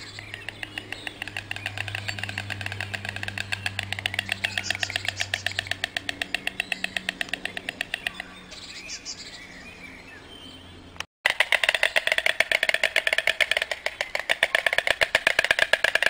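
White storks clattering their bills: a fast, even rattle of clicks that dies away about eight seconds in. After a sudden break, a second, louder clattering bout follows.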